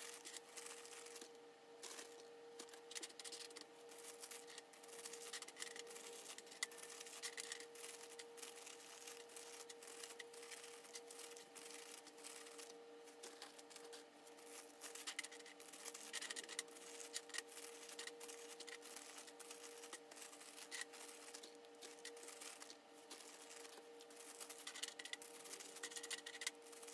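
Faint rustling and crinkling of a clear plastic bag and a disposable plastic glove as crisp chiffon-cake rusks are picked off a baking tray and dropped into the bag. Scattered light clicks come from the pieces, over a steady hum.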